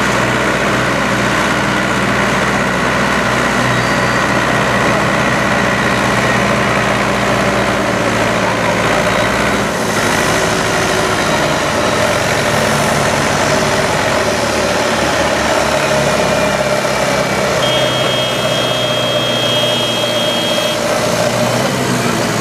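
Small Massey Ferguson tractor's engine running hard and steady under load as it pulls a weighted sled.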